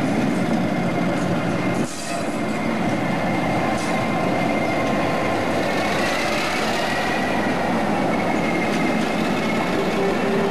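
Diesel locomotive, the shunter Y137, moving past close by: engine running with wheels rolling on the rails and a faint squeal. The sound changes abruptly about two seconds in.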